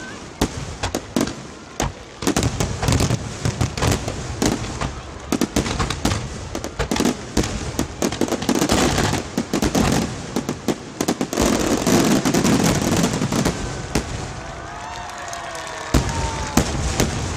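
Fireworks display: a rapid barrage of shell bursts and crackling, densest in the middle and thinning out over the last few seconds.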